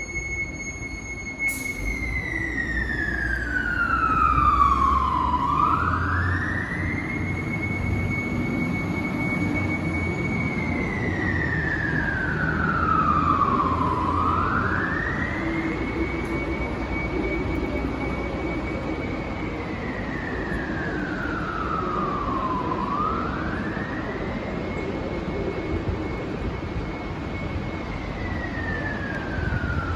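Fire truck's siren sounding a slow wail: the tone holds high, slides down over about four seconds, then climbs back up, repeating about every eight to nine seconds, the signal of an emergency response. A low rumble runs underneath.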